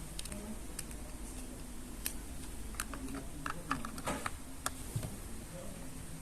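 Scattered light clicks and taps of a plastic toy and its packaging being handled, irregular and spaced out.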